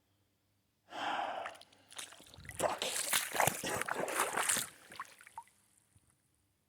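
Creek water splashing and sloshing around a person's legs and feet as he wades in, with many small sharp splashes over a couple of seconds. A short gasp about a second in.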